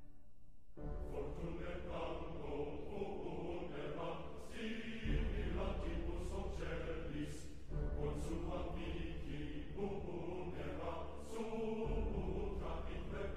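Music with a choir of singing voices.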